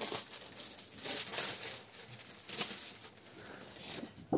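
Paper rustling and crinkling in a few brief bursts as a scrapbook paper pad is handled and lifted out of a box lined with tissue paper.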